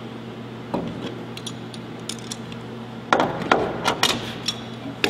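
Small metal clicks and clinks of Cleco fasteners and Cleco pliers being handled against an aluminium flaperon. A run of louder sharp clicks and snaps starts about three seconds in as the pliers set a Cleco.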